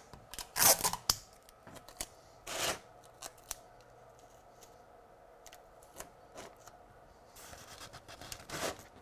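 Sticky tape pulled from a desk dispenser and torn off, two short tearing rasps about a second in and just under three seconds in, followed by small taps and a rustle near the end as the tape and card are pressed into place.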